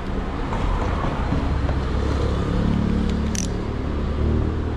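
Yamaha motorcycle engine idling steadily while stationary, with a brief click about three seconds in.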